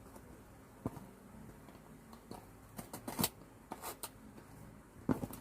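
A cardboard mystery box being handled and opened by hand: irregular sharp clicks and short rustles, with a cluster near the middle and another near the end.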